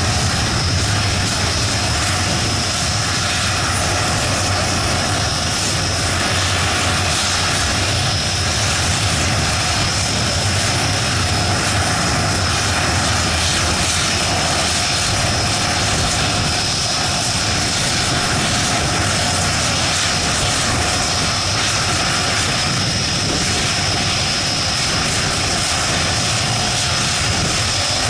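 AMX A-11 jets' Rolls-Royce Spey turbofans running on the ground: a constant, even jet rumble with a steady high whine over it.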